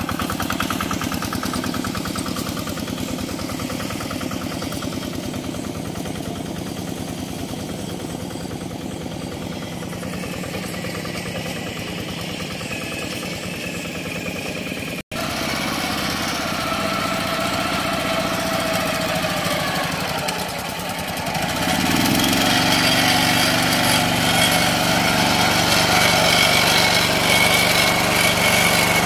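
Quick Impala hand tractor engine running steadily, with a brief cut about halfway through; it runs louder and more evenly for the last several seconds.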